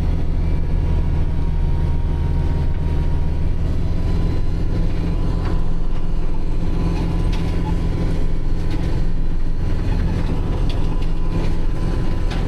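Kubota tractor's diesel engine running steadily under load, driving a three-point-hitch rear snowblower.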